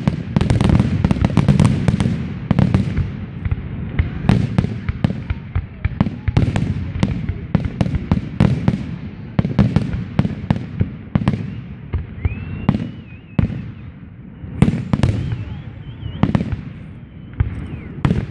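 Fireworks finale barrage: many shells bursting in rapid succession, densest in the first few seconds, then thinning into separate bangs. A few thin wavering whistles come through in the second half.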